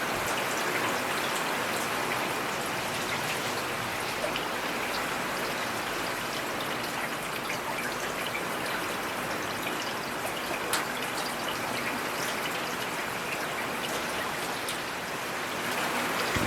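Steady rain falling in a forest: an even hiss of rain with scattered sharp drop hits.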